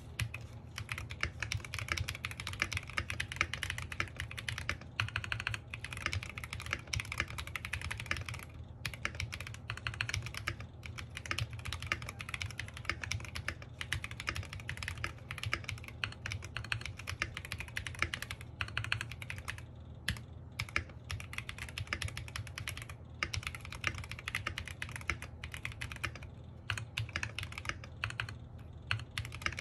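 Continuous fast typing on an NJ68 Max mechanical keyboard with stock, unlubricated Royal Blue switches, in a foam-dampened polycarbonate case with a brass plate, under pudding keycaps. The key strokes run as a dense clatter broken by a few brief pauses.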